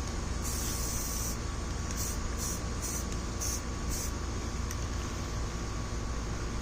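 Aerosol spray can of Rust-Oleum camouflage paint hissing as the first coat goes onto a steel M1 helmet: one burst of about a second, then a run of short quick sprays over the next three seconds. A steady low hum runs underneath.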